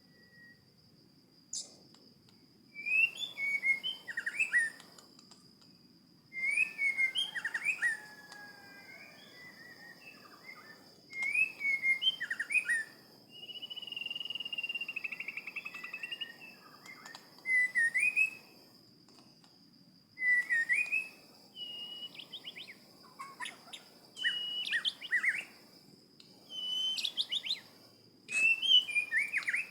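A songbird calling in short whistled phrases every couple of seconds, with one longer held phrase about halfway through. A thin, steady high tone runs underneath.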